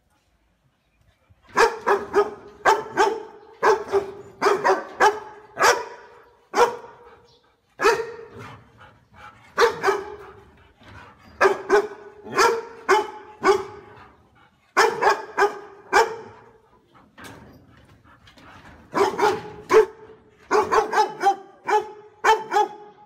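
Dog barking repeatedly in runs of two to five barks with short pauses between, starting about a second and a half in.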